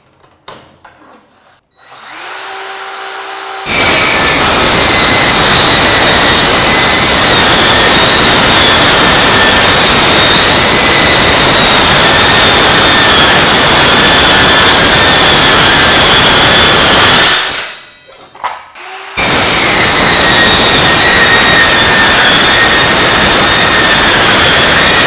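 Metabo MKS 18 LTX 58 cordless metal-cutting circular saw spinning up about two seconds in, then cold-cutting a 2 mm mild steel plate along a guide rail: a loud, steady cutting noise with high whining tones. It breaks off briefly about 18 seconds in, then cuts on.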